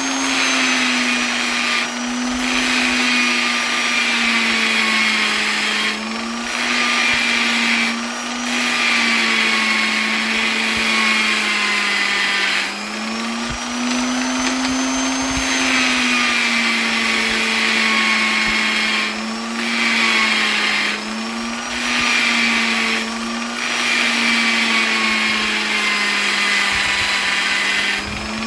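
Electric polisher running steadily: a motor hum that wavers slightly in pitch under a high whirring hiss, which dips briefly every few seconds.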